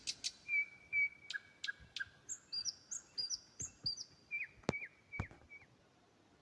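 A string of short, bird-like chirps at a few different pitches, interspersed with a few sharp clicks, the loudest two clicks about two-thirds of the way through; the sound stops shortly before the end.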